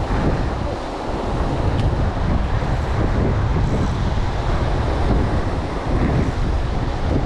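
Strong wind buffeting the microphone, over ocean surf breaking against the rocky cliff base.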